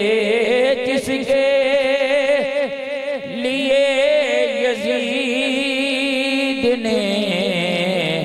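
A man's voice chanting a devotional Urdu verse in long, drawn-out notes with a wavering, melismatic line. It moves to a lower phrase near the end.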